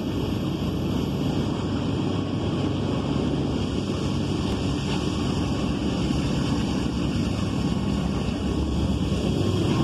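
Low, steady rumble of an approaching Norfolk Southern diesel freight locomotive, growing slightly louder near the end, mixed with wind noise on the microphone.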